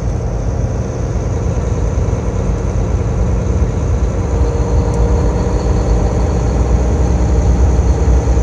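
Steady engine and road rumble heard from inside a moving vehicle, with a faint high-pitched whine running through it.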